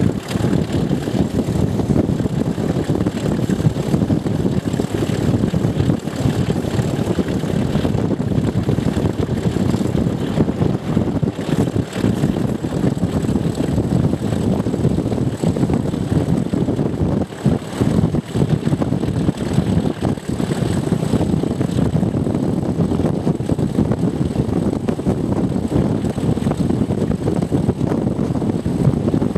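Class 37 locomotive 37676's English Electric V12 diesel engine running under power, heard through an open coach window right behind it. The engine sound is mixed with wind rushing past and stays steady, apart from a brief dip about two-thirds of the way through.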